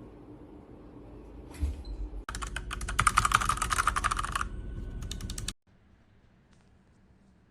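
Mechanical keyboard with Outemu switches being typed on: a fast, dense run of keystrokes for about two seconds, then a few scattered ones that stop about halfway through.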